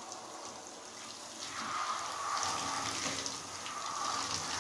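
Handheld shower head spraying water onto a wet dog's coat in a bathtub: a steady hiss and splash of running water that grows a little louder about a second and a half in.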